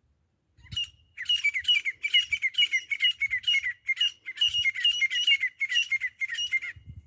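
Grey francolin calling: a single note, then a fast run of repeated high, ringing phrases, about three a second, lasting some six seconds.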